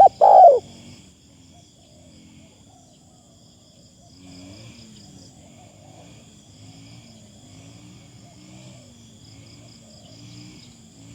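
Spotted doves cooing: two loud short calls right at the start, then softer low coos repeating. Insects keep up a steady high trill behind them.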